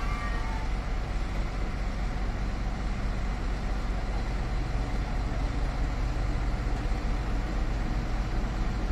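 Heavy diesel engine idling steadily with a low, even rumble.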